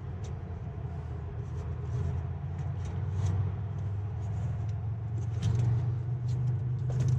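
Steady low machinery hum, with small scattered clicks and ticks as wires and plastic connectors are handled inside an HVAC rooftop unit.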